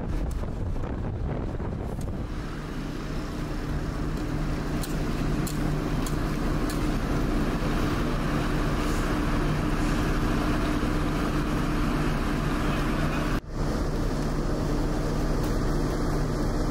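Fire engine's motor running at a steady speed under a rushing noise, its steady hum settling in about two seconds in. The whole sound drops out for an instant near the end.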